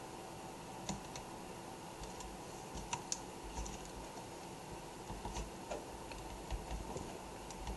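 Faint, scattered light clicks and taps of a small screwdriver and hands driving screws back into a laptop screen's side mounts, a little busier near the end.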